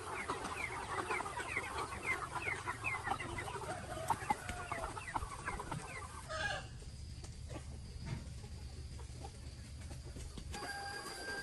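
A flock of chickens clucking and calling, many short overlapping calls over a low steady hum. The calls die away about six and a half seconds in.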